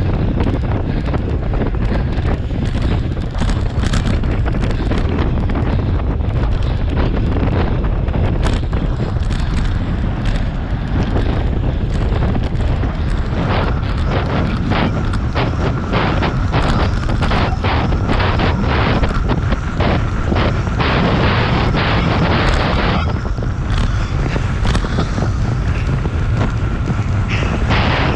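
Wind buffeting a bicycle-mounted camera's microphone at racing speed, loud and steady. From about halfway through, a rapid clatter of short ticks and knocks joins it, with a faint steady whine for several seconds.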